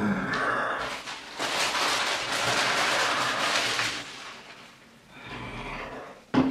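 Paper sandwich wrapper crinkling and rustling for a couple of seconds as it is handled, with a short sharp thump near the end.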